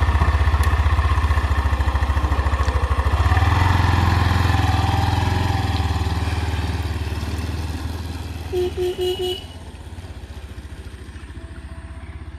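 Motorcycle engine running with a fast, even beat, revving up a few seconds in as it pulls away, then fading with distance. About two-thirds of the way through come four short horn beeps.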